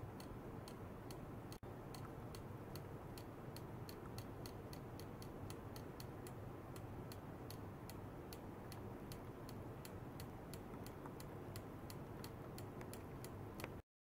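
Faint, evenly spaced sharp ticks, a little over two a second, over a steady low hum. There is a brief dropout about a second and a half in, and the sound cuts off just before the end.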